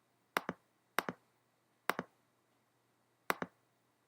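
Computer mouse button clicked four times, each click a quick press-and-release pair, unevenly spaced over about three seconds.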